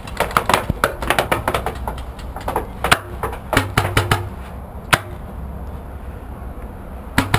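Tippmann X7 Phenom paintball marker firing a rapid string of sharp shots for about three seconds, then a few single shots, with another quick burst near the end.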